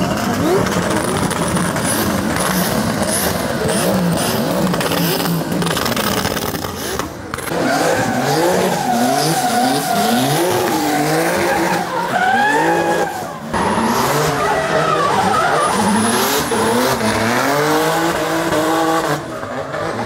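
Drift cars' engines revving hard, rising and falling in pitch as the throttle is worked, with tyres squealing and skidding through slides. The sound breaks off briefly a few times as it jumps from one car to another.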